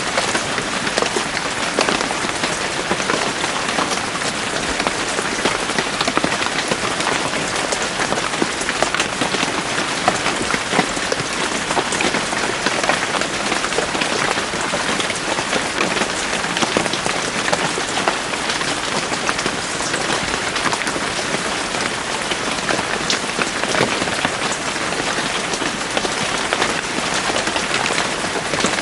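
Steady, heavy rain falling in a forest, a dense patter of many individual drops hitting leaves and surfaces.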